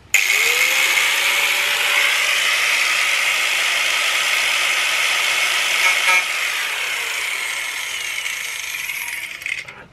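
Corded angle grinder spinning up, its motor pitch rising, then cutting through the sheet-metal rear fender of a Toyota GT86 with a steady, loud, high grinding. The grinding tails off shortly before the end.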